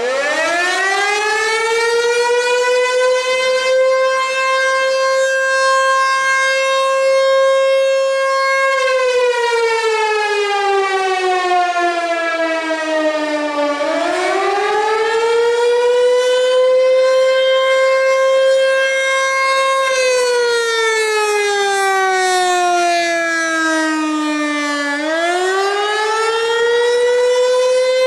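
An American Signal Tempest T-128 outdoor warning siren, a single-tone siren with an 8-port chopper, winds up from rest to a loud steady tone. It then twice slides down in pitch and winds back up, the rise-and-fall wail of the Attack signal.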